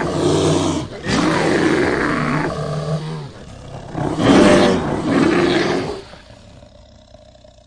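Brown bear roaring and growling in several long, rough roars. There is a short break about a second in and a lull around three seconds, and the loudest roar comes about four seconds in. After that it dies away to a low growl and stops near the end.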